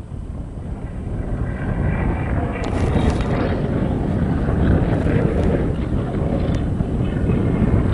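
Wind buffeting the microphone, with an iceboat's runners hissing and scraping across lake ice, growing louder from about a second in as the boat passes close, with a few faint ticks.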